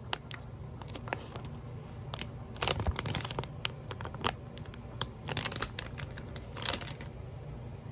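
Plastic gummy-candy bag crinkling as it is held and turned in the fingers: irregular crackles with a few louder bursts spread through.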